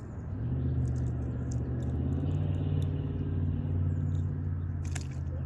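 A motor engine running with a steady low hum that comes in about half a second in and holds on, with a short sharp click near the end.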